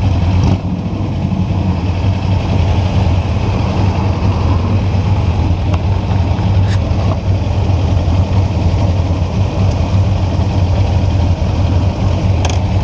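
Small sport-bike engine running steadily while riding, with even road and wind noise.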